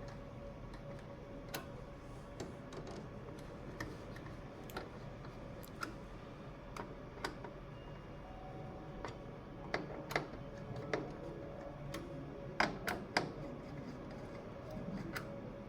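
Small irregular clicks and taps from a screwdriver driving the CPU heat sink's retaining screws down onto the motherboard, more frequent and louder about ten to thirteen seconds in, over a faint steady hum.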